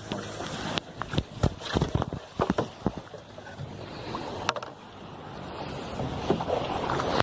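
Hawaiian outrigger canoe setting off under paddle: irregular knocks on the hull and paddle splashes over a steady rush of water, growing louder toward the end.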